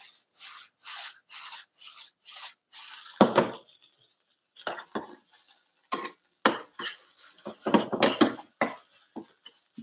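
Utensil working caramelising onions in a metal frying pan: scraping strokes about two a second for the first three seconds, then scattered knocks and clinks against the pan, the loudest cluster about eight seconds in.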